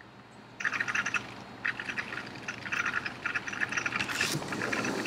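Border collie pawing at a sliding glass door: its claws scrape and the door rattles in a series of short, rapid scratchy bursts, starting about half a second in.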